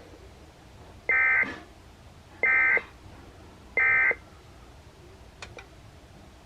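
Emergency Alert System end-of-message tones: three short, identical bursts of the SAME digital data signal, each about a third of a second long and spaced about 1.3 seconds apart, marking the end of the alert test.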